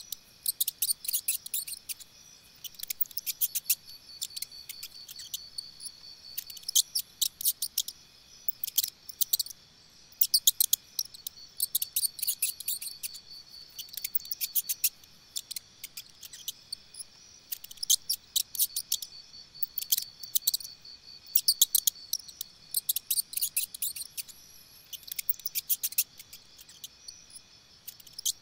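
Insects chirping: bursts of rapid high-pitched clicking trills every second or two over a steady high drone.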